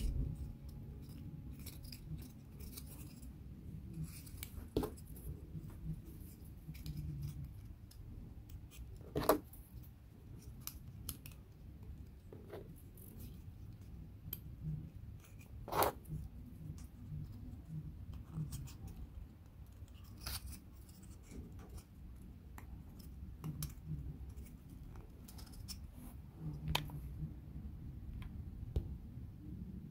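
Light, scattered clicks and taps of thin laser-cut wooden puzzle pieces being handled and pressed together, with a few sharper clicks spread through, over a low steady room hum.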